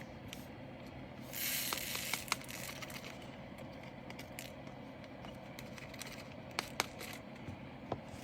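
Light clicks and plastic rustling from handling small bags of resin diamond-painting drills, with a short burst of rustle about one and a half seconds in.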